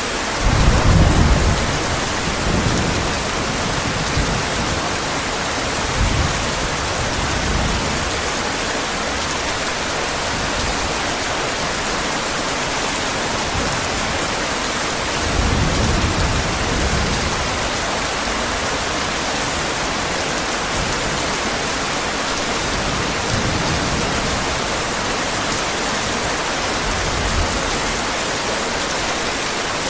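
Steady heavy rain hissing, with low rolls of thunder now and then: the loudest about a second in, another around the middle, and fainter ones between.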